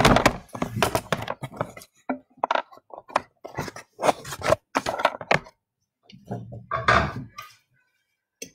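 A metal spoon knocking and scraping against small cups and plates in irregular short bursts, as water is spooned into instant coffee powder to mix the paint.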